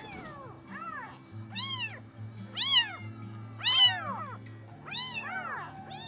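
Very young kitten meowing repeatedly: about eight high cries, each rising and then falling in pitch, the two loudest about three and four seconds in.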